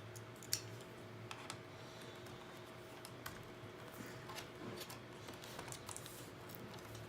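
Scattered small clicks and taps of a flat-blade screwdriver working at a Dell Latitude E6410 laptop's plastic case, irregular and a few a second at most, over a faint steady hum.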